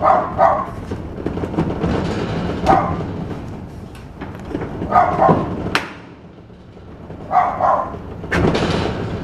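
A dog barking in short bouts every two to three seconds. Between the barks come scraping and a few sharp knocks of a steel post extension sleeve being worked down into a steel fence post.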